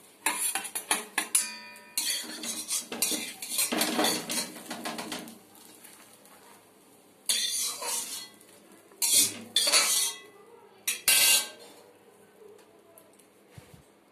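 Spatula scraping and clanking against a metal kadai and a steel bowl as fried egg is lifted out of the pan. Scraping runs for about five seconds, then three short bursts of metal clatter follow, and it falls quiet about twelve seconds in.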